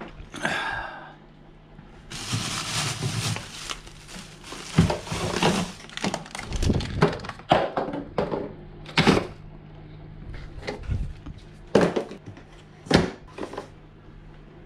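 Gear being loaded and packed: a series of sharp knocks and thunks, with a stretch of rustling like plastic bags about two seconds in, over a faint steady low hum.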